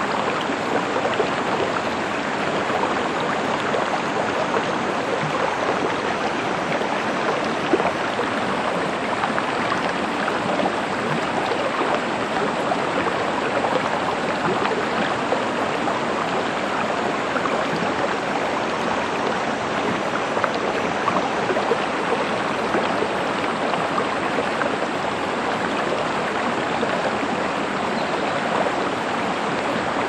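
Shallow rocky stream flowing steadily over stones: an even rush of water made up of many small splashes.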